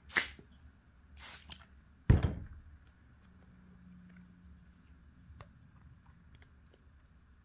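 Two quick squirts from a hand-pump spray bottle misting a leather-hard clay cup, followed about two seconds in by a loud thump, then only faint light handling sounds as a sponge is dabbed on the damp paper.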